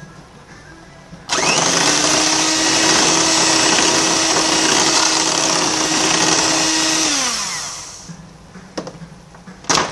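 Electric hand mixer running, its beaters whirring through flour batter in a ceramic bowl: it switches on suddenly about a second in, runs steadily at one speed for about six seconds, then winds down as it is switched off. A few knocks follow near the end.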